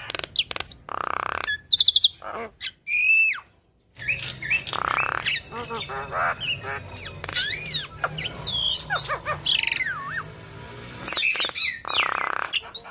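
Javan myna singing a varied song: harsh rasping squawks, a quick rattle and looping whistled notes that swoop up and down, with a brief pause about three and a half seconds in.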